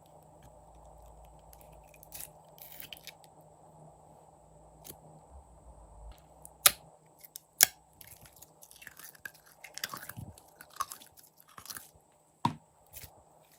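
Clear slime being handled, giving scattered sharp clicks and short crackles, with the first few seconds nearly quiet.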